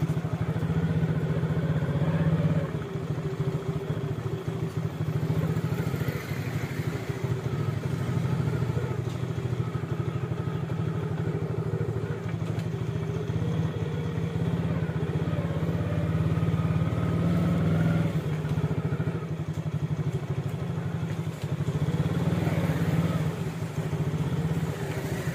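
A motor vehicle's engine running steadily close by, likely a motorcycle, with street traffic sounds around it.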